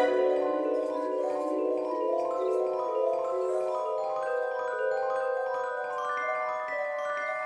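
Instrumental background music carried by bell-like mallet percussion, with the notes climbing step by step in the second half.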